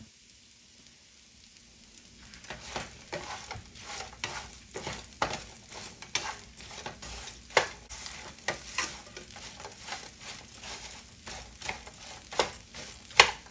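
Wooden spoon stirring and tossing torn flatbread pieces frying in oil in a nonstick frying pan: frequent scrapes and knocks against the pan over a light sizzle. The stirring starts about two seconds in.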